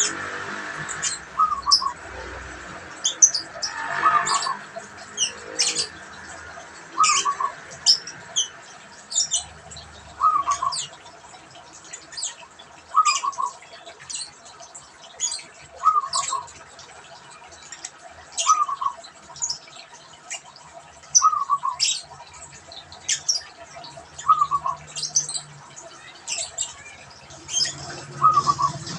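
Zebra dove cooing: a short stuttering phrase of a few quick falling notes, repeated about every two and a half seconds. Brief high chirps sound throughout.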